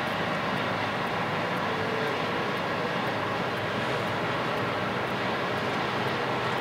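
Twin-engine jet airliner taxiing, its engines running steadily at low taxi power.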